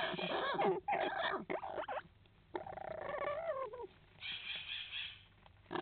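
Two Amazon parrots calling to each other inside a hollow nest log: a run of short wavering calls, a falling call about three seconds in, and a higher call near the end.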